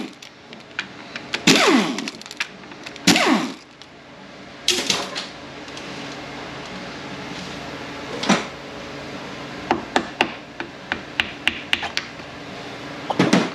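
A cordless power ratchet whirs in several short bursts, backing out the 10 mm bolts of a Ford 4F50N transmission's servo cover. A run of quick, light metallic clicks and taps follows near the end as the servo cover is worked loose.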